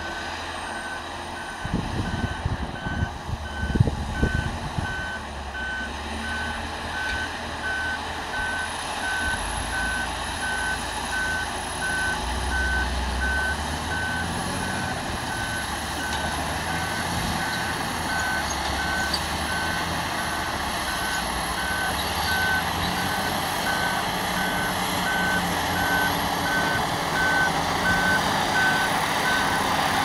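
Volvo articulated dump truck reversing under load, its backup alarm beeping at a steady, regular pace over the diesel engine running. The engine grows gradually louder as the truck approaches. A few low thumps come about two to four seconds in.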